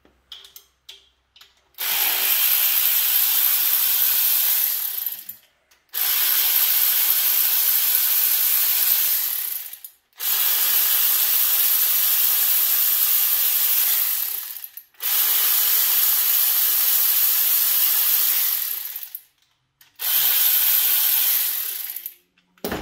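Power ratchet running in five long bursts of about three to four seconds each, with short pauses between, as rocker arm bolts are run out. A few light clicks of tool handling come before the first burst.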